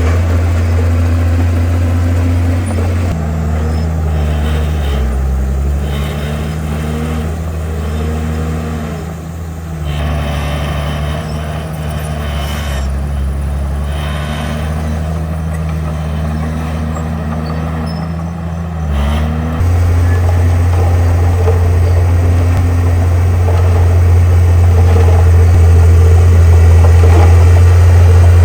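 Heavy diesel earthmoving machinery working, its engine note rising and falling repeatedly with load. About two-thirds in, it jumps to a louder, steady low drone that keeps growing louder toward the end.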